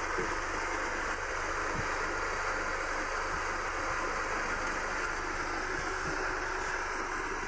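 Small electric household rice mill running steadily as it hulls and polishes paddy rice fed from its hopper: an even rushing noise with a low hum underneath.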